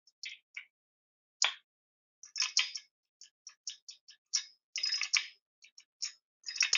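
Irregular sharp metal clicks and clinks of a hand socket tool working on the cylinder-head nuts of a bicycle engine, some in quick clusters, a few louder knocks.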